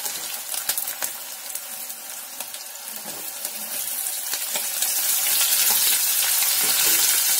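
Cashews, garlic and ginger sizzling as they fry in ghee in a kadhai, with the scrape and click of a spatula stirring. The sizzle grows louder about halfway through as chopped onion is tipped into the hot ghee.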